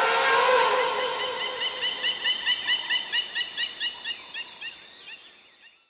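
The tail of an elephant's trumpeting call dies away in the first second. A rapid, even run of short high chirps follows, about five a second, fading out to nothing at the end.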